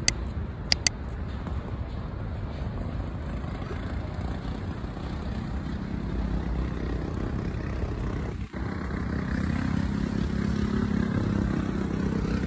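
Steady city road-traffic noise, with three sharp clicks in the first second and one brief dropout past the middle.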